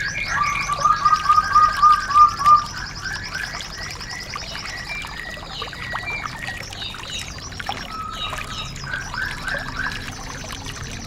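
Several songbirds singing together, as on a bird-song training recording: a fast high trill runs throughout. In the first couple of seconds there is a row of about seven loud, lower repeated notes, followed by assorted chirps and short whistles.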